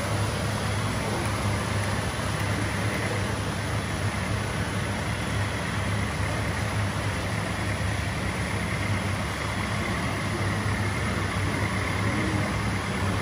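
Remote-control model truck running, a steady engine-like hum with no changes in pitch, over a constant hiss.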